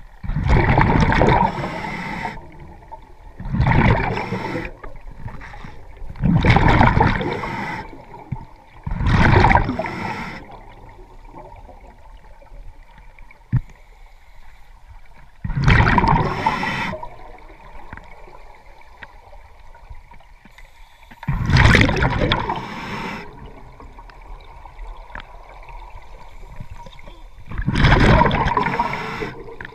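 A scuba diver breathing underwater through a regulator, heard through the camera housing. There are seven loud bursts of exhaled bubbles, about every three seconds in the first ten seconds and then about every six, with a quieter steady hiss between them.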